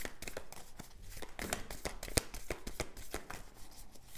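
A deck of tarot cards being shuffled by hand: an irregular run of soft card clicks and slides, with one sharper snap a little past two seconds in.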